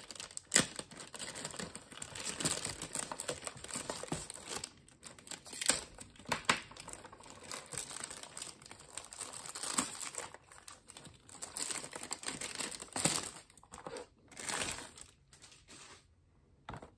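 Clear plastic wrapping sheet crinkling and rustling in irregular crackles as it is pulled and peeled off a cardboard box. It dies down near the end.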